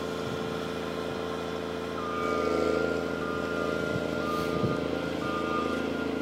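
Snow groomer's diesel engine running steadily as the tracked machine drives with its tiller down. From about two seconds in, a warning beeper sounds about once a second over the engine.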